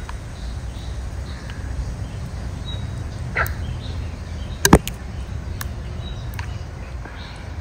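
Riverside background: a steady low rumble with faint bird calls, and a few sharp clicks, the loudest just under five seconds in.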